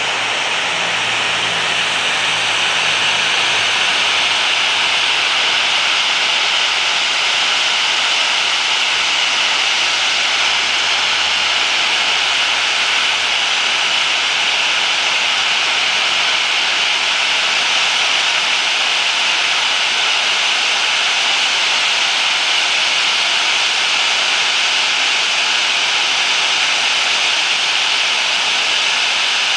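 Boeing 737-800's CFM56-7B turbofan engines running at low taxi power: a steady, even rushing noise with a hissing high edge that does not change in level.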